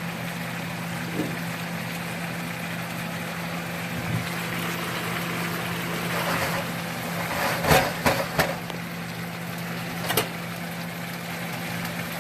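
Pork, onions and peppers simmering in their juices in a frying pan: a steady sizzle over a constant low hum, with a few sharp scrapes of a utensil against the pan about eight seconds in and once more about two seconds later.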